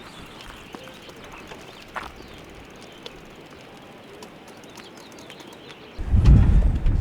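Quiet outdoor ambience with faint bird calls and a few light clicks. About six seconds in, a loud low rumble of wind buffeting the microphone starts suddenly.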